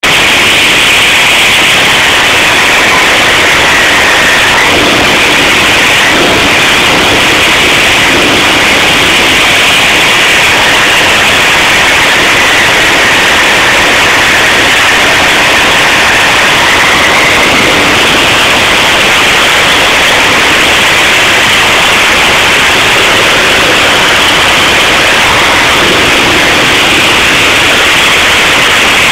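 Caterpillar C12 inline-six diesel engine running steadily, so loud at close range that the recording is overloaded into a harsh, even noise.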